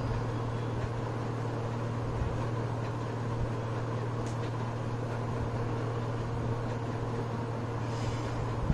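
A steady low hum with an even background hiss, like a fan or appliance running, with a couple of faint ticks.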